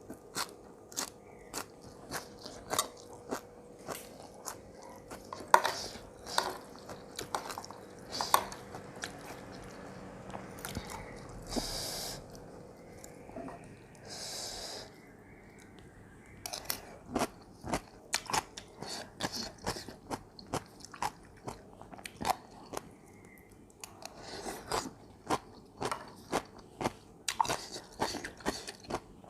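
A person chewing and biting crunchy food, with close, sharp crisp crunches coming every half second or so, a lull about halfway through and then steady crunching again.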